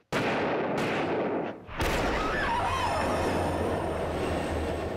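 Loud sound effects from a TV drama's soundtrack: a sudden bang sets off a dense, noisy rumble, with two more sharp bangs about one and two seconds in, and a faint wavering tone over the rumble afterwards.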